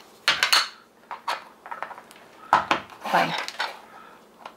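Small hard plastic toy pieces clicking and tapping as they are pushed together: a quick cluster of clicks near the start, then a few single taps. A short spoken word follows.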